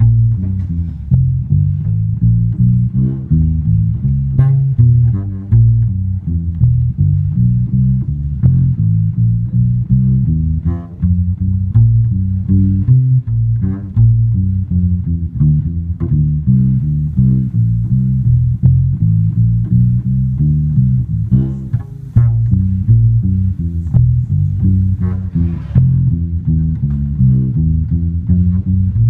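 Kala ukulele bass (U-Bass) played with the fingers: a steady run of plucked low bass notes, several a second, with no breaks.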